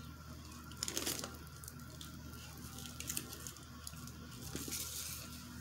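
Faint rustling and a few light clicks from a leather tote bag and its hardware being handled, with a cluster about a second in and more near the end, over a steady low hum.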